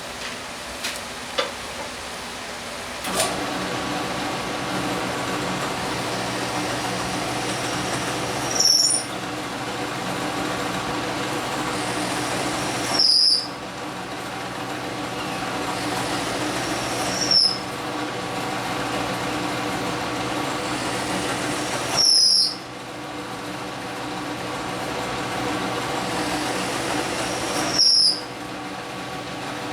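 Drill press motor starts about three seconds in and runs with a steady hum. Five times, every four to five seconds, a bit is fed into the wood with a short loud cut and a high squeal, drilling the row of holes for the pen reamers.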